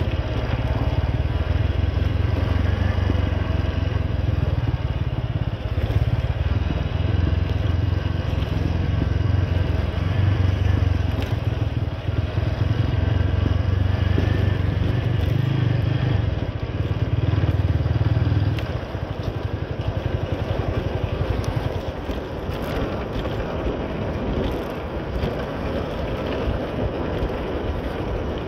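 Motorcycle engine running as the bike is ridden at low speed, with a steady low engine note. About two-thirds of the way through the engine note drops away, leaving mostly road and wind noise.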